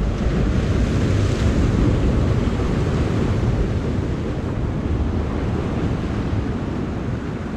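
Ocean surf washing against the rocks of a jetty, with wind buffeting the microphone. The rush swells over the first couple of seconds and then slowly eases.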